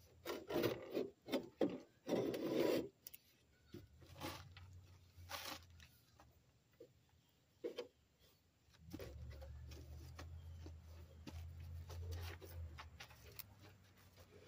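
Rubbing and scraping close to the microphone, with loud rustles in the first three seconds and scattered knocks and scrapes after. A low steady hum joins from about nine seconds in.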